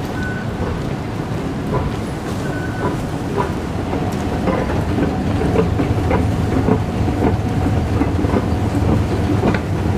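Moving walkway running: a steady low rumble of its drive and pallets with light repeated clacks, two or three a second, getting louder about four seconds in.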